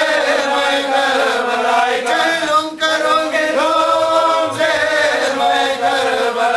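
A man chanting an Urdu mourning elegy for Husain, unaccompanied, drawing out long held notes that bend in pitch.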